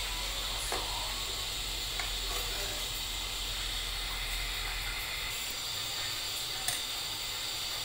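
Steady hiss from a pot of pumpkin milk drink heating on a gas stove as it comes to the boil, with a few faint clicks of a metal ladle against the aluminium pot.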